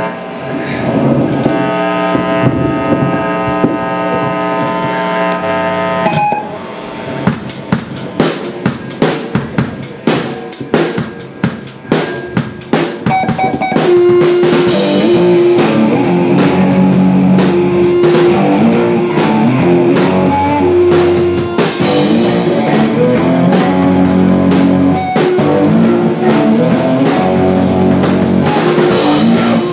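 Live rock band: a held chord rings for about six seconds, then the drum kit plays alone with snare and kick hits, and about fourteen seconds in the full band comes in with an electric guitar riff over the drums.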